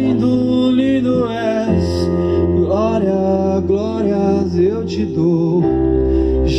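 Live gospel worship music: a man singing a slow melody over sustained keyboard chords and bass, with the bass shifting to new notes twice.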